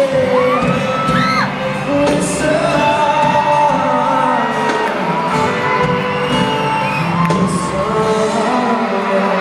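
Live pop concert music with singing, heard through the stadium PA from the stands, with high screams from the crowd over it, strongest about a second in.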